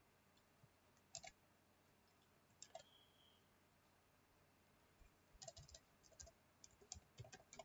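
Faint computer keyboard and mouse clicks while text is edited: a few isolated clicks in the first three seconds, then a quick run of keystrokes over the last two and a half seconds.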